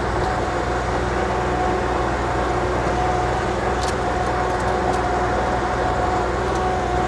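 The 50-horsepower LS Mtron engine of a KYMRON XL50 wheeled skid steer runs steadily as the machine drives, with a steady high whine over the engine note. A few light clicks come in the second half.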